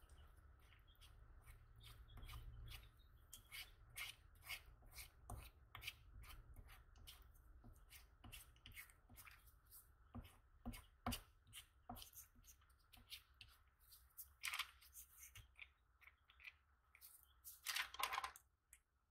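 Spatula scraping and smearing ointment on a sheet of ointment paper: a faint run of short scrapes and taps, with two louder swishes near the end, as nitroglycerin ointment is worked into the ointment base.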